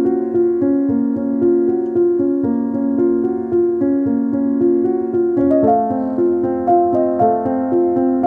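Background music with evenly repeated keyboard notes, moving to a new chord about five and a half seconds in.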